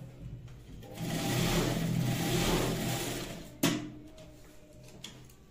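Industrial sewing machine running a stitch along a zipper for about two and a half seconds, starting about a second in, with a steady motor hum. It stops with one sharp clack near the end of the stitching.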